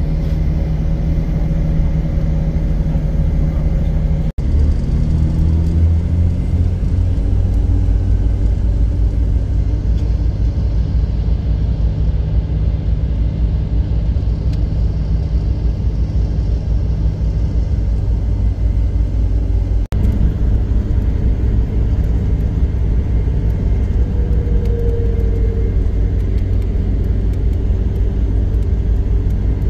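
Road vehicle driving, heard from inside: a steady low rumble of engine and road noise, with the engine hum shifting in pitch as speed changes. The sound cuts out for an instant twice.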